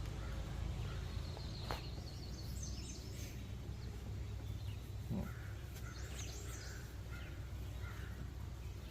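Birds calling faintly now and then over a steady low background hum, with a single click a little under two seconds in.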